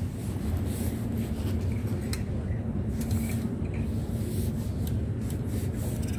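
Fabric rubbing and rustling against the phone's microphone as it brushes along hanging clothes on a store rack, over a steady low rumble.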